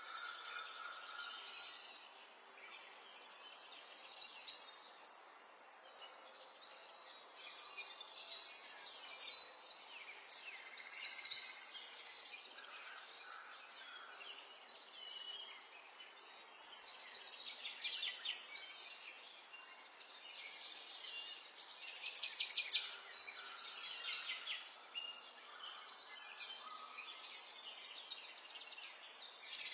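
Small songbirds singing and chirping over a faint steady background, with fast high trills and repeated phrases coming one after another.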